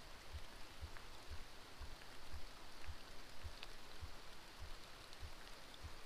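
Steady patter of rain falling on the surface of a creek, with a soft low thump recurring about twice a second underneath.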